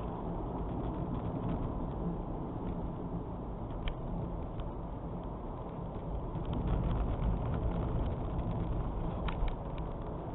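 Strong wind of a snowstorm blowing steadily, swelling in a gust in the second half, with a few faint ticks.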